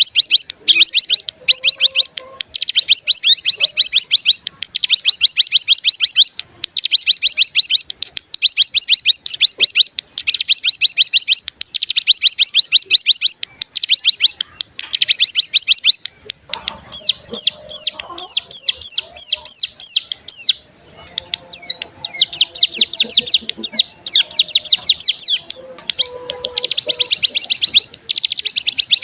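Ciblek gunung songbird singing its fast, rattling trill (the 'ngebren'). The trill comes in repeated bursts of about a second, each a quick run of sharp, high, sweeping notes with short gaps between. A faint, thin, steady high tone runs underneath.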